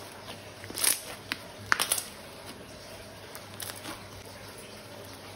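Hands working slime and plastic: a few sharp crackles and clicks in the first two seconds, then only a faint steady hiss.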